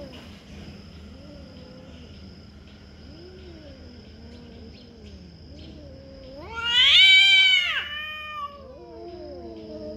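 Two domestic cats caterwauling in a close face-to-face standoff: low, drawn-out wavering yowls. About two-thirds of the way through, one cat lets out a loud, high, rising-then-falling screaming yowl before the low yowling resumes.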